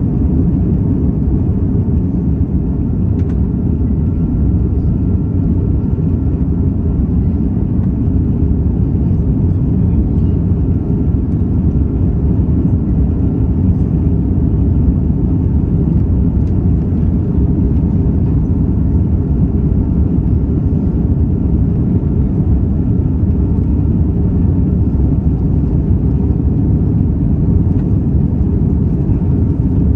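Steady cabin noise inside an airliner climbing after takeoff: a loud, even rumble of jet engines and airflow, strongest in the low range.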